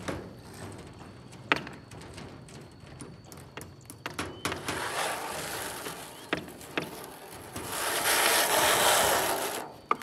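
A plywood formwork panel scraping and rasping across the other boards of the deck as it is dragged and lifted, loudest near the end, with scattered sharp knocks of boards on boards.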